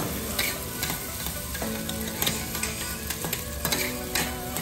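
Fried garlic rice sizzling on a teppanyaki steel griddle while metal spatulas chop and turn it, their blades making repeated sharp clicks and scrapes against the hot plate.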